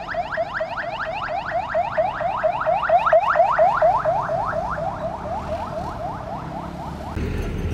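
Electronic alarm or siren sounding a rapid train of rising chirps, about five a second, that cuts off suddenly near the end, leaving road traffic rumble.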